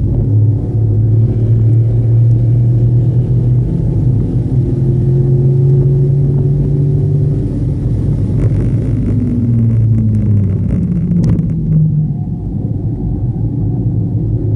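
Car engine running hard on a race track, its note holding steady and then falling away over several seconds as the car slows.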